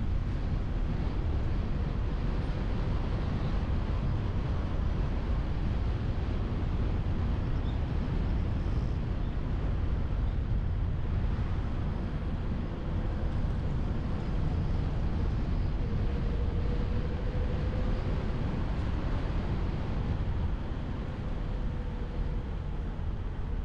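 A car being driven, heard from an onboard camera: a steady low rumble of road and wind noise, with a faint steady whine in the second half.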